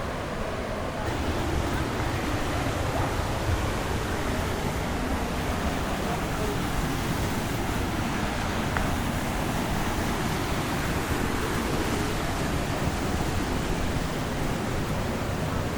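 Steady rushing of falling water from a waterfall, growing louder and brighter about a second in.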